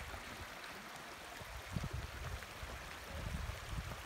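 Small mountain stream running over rocks, an even rushing hiss, with irregular low rumbles underneath.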